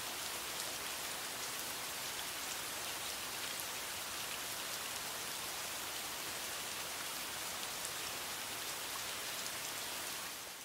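Steady hiss of rain with scattered faint drop ticks, fading out near the end.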